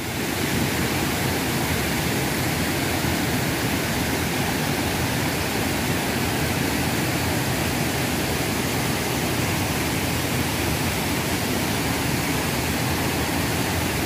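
Small waterfall and rocky stream rapids: a steady, even rush of water over rocks.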